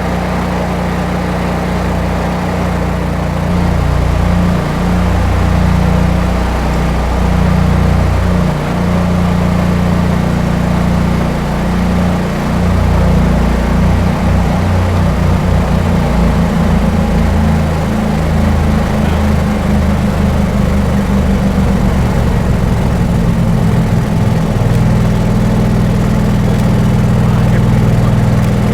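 Home standby generator's engine running under load, its pitch wavering and shifting as household loads come on, then settling to a steady hum near the end.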